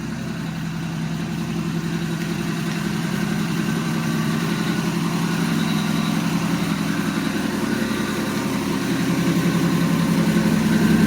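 Chrysler Slant Six engine of an old Dodge running at a low idle as the car is driven in slowly, its steady note growing gradually louder.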